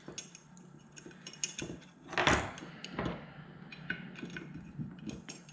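Small metal parts clicking and clinking as old ignition parts are worked out of a VW distributor body, with one louder knock about two seconds in.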